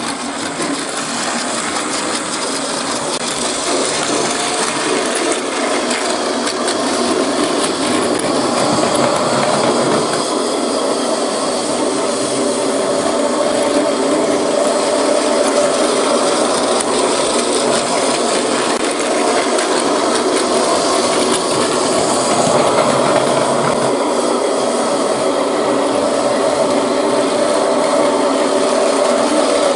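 Battery-powered Plarail toy train running steadily along plastic track, its small electric motor and gears whirring over the clatter of the wheels.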